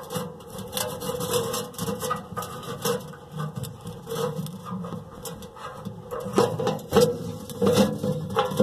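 Handling noise from a phone camera being repositioned by hand: fingers rubbing, scraping and tapping on it in an irregular run of clicks and knocks.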